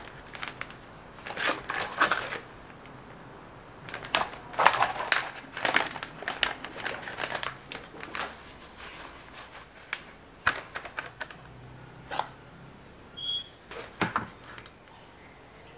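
Kitchen handling noises during food preparation: irregular clusters of crinkling and clicking, busiest about four to six seconds in, with a brief high ping near the end.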